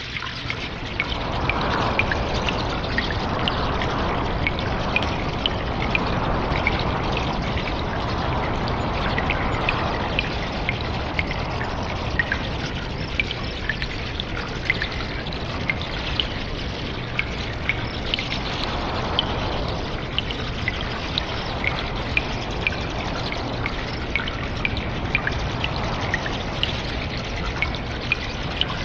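Cave ambience of water dripping many times and trickling. Short drips fall steadily over a wash of running water that swells and fades every few seconds.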